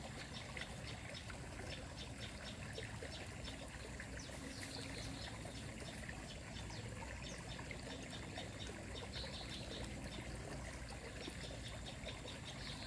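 Light rain falling on a pond and the leaves around it, a steady patter of many small drops. A couple of faint high chirps come through about a third and two thirds of the way in.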